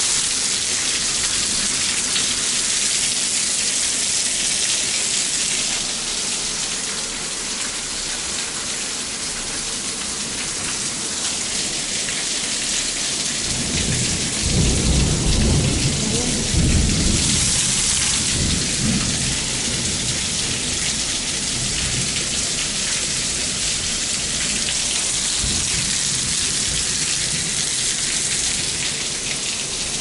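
Heavy rain falling steadily, with a low roll of thunder about halfway through that rumbles for several seconds before dying away.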